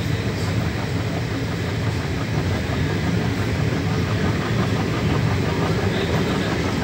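Passenger train coach running along the track, a steady low rumble of wheels on rails heard from the coach window.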